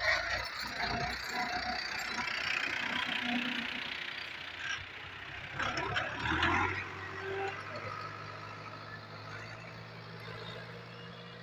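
Farm tractor engine running as it pulls a tined plough through the soil. Its steady hum becomes plainer and slowly fainter in the second half.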